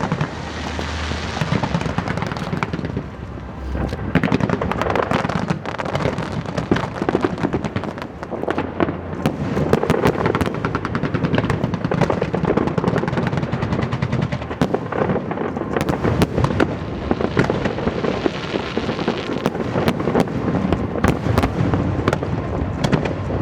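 Aerial fireworks going off in a dense, continuous barrage of rapid bangs and crackles.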